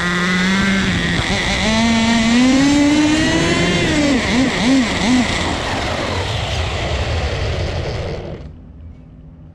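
Small two-stroke glow engine of a turbocharged nitro RC car running hard: its pitch climbs, wavers with the throttle, holds, then the engine bogs out and dies about eight seconds in. The owner takes the bogging for a sign that the fuel mixture may still be too rich.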